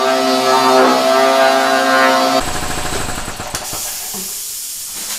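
A pneumatic random-orbit sander running with a steady whine. About two and a half seconds in, it gives way to the pulsing run of a Rockworth two-stage air compressor's pump, whose strokes grow sparser and fade as it winds down.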